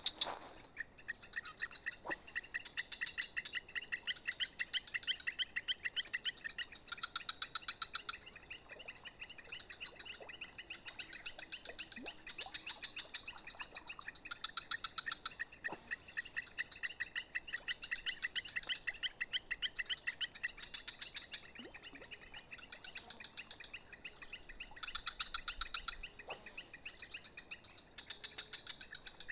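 Insects calling in dense riverside vegetation: a steady high-pitched shrill with rhythmic pulsed chirping that swells and fades every few seconds. A few faint ticks are heard now and then.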